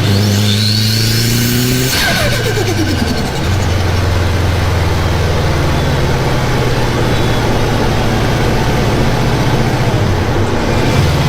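Turbocharged car engine revving, its pitch falling away about two seconds in, then running at a steady low pitch.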